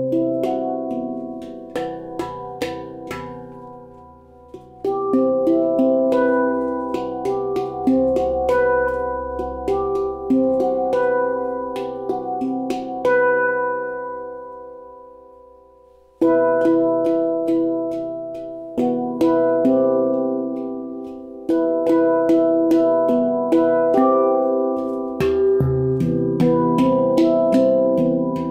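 Baopan stainless-steel handpan in a C Aegean scale (C/E G B C E F# G B) played by hand: struck notes ring on and overlap in flowing phrases. About halfway through, the playing pauses and the notes ring away for a few seconds, then the phrases start again.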